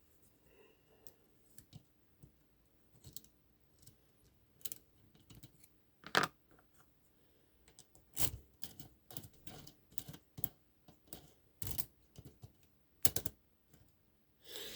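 Small metal tools and lock parts being handled: irregular light clicks and taps, with a few sharper knocks at about six, eight, twelve and thirteen seconds in.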